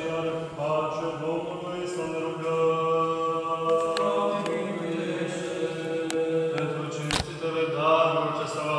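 Orthodox liturgical chant: voices singing a slow response in long held notes that shift pitch every second or so, with a few sharp clicks, the loudest about seven seconds in.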